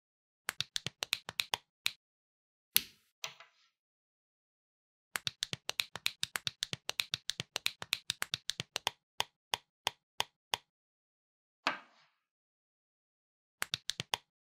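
Small plastic building bricks clicking into place in quick runs of sharp clicks: a burst of about a dozen at the start, a long run of roughly four a second through the middle, and a few more near the end. Two louder single knocks, each with a short rattle after it, come about three seconds in and about twelve seconds in.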